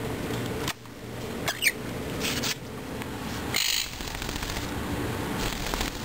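Pet parrots giving a few short calls: a quick whistled chirp, then a brief harsh squawk about three and a half seconds in.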